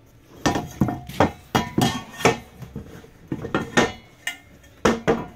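Stainless steel dinette table leg clanking as it is handled and fitted into its holder under the bench: a quick run of about a dozen sharp metallic knocks.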